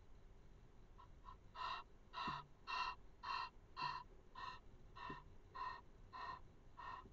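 Egyptian goose calling: a regular series of about ten short calls, a little under two a second, starting about a second and a half in.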